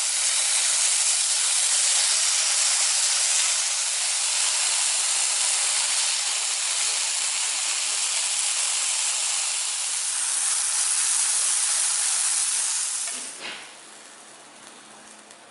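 Thin slices of marinated beef sizzling in a hot pan: a steady hiss that cuts off near the end.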